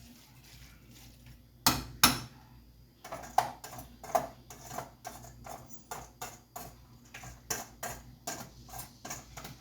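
A spoon knocking and scraping against a cooking pot while rice is added and worked into the pot: two loud knocks about two seconds in, then a steady run of knocks about three a second.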